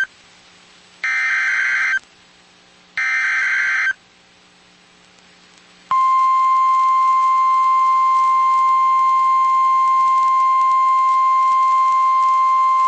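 Emergency alert SAME header from NOAA Weather Radio: two screechy data-tone bursts, each about a second long and a second apart. Then, about six seconds in, the steady single-pitch weather radio warning alarm tone starts abruptly and holds, marking the start of a new warning broadcast.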